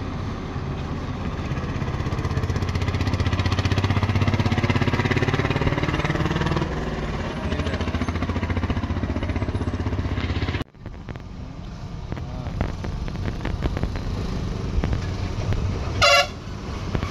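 Heavy truck diesel engine pulling round a hairpin bend, its pitch rising as it works and loudest around the middle. After a sudden cut, another truck's engine rumbles closer and a horn sounds briefly near the end.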